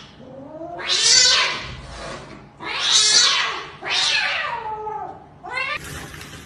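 Cornered kitten hissing repeatedly at a larger cat in a defensive standoff, several harsh hisses about a second apart with drawn-out yowling tones between them.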